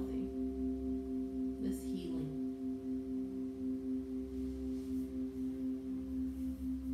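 Background music: a drone of a few held ringing tones with a slow wavering pulse. A brief soft breathy sound comes about two seconds in.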